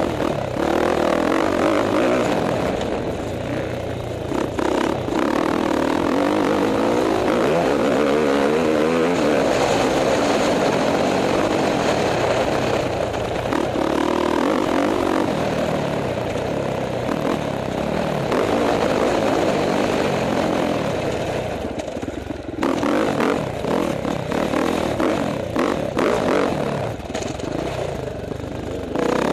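KTM 450 XC-F four-stroke single-cylinder dirt bike engine heard from the rider's helmet camera, revving hard and easing off again as the throttle opens and closes, with the engine note dropping briefly around four seconds in and again about two-thirds of the way through.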